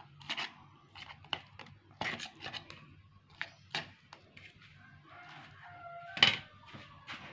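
Orange plastic spatula scraping and tapping inside a clear food-chopper bowl, pushing down freshly chopped shallots, garlic and chillies: scattered short scrapes and clicks, with a sharper knock about six seconds in.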